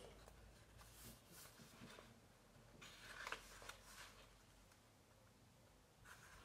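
Near silence, with faint rustles of loose sheets of drawing paper being handled and turned over, strongest about three seconds in.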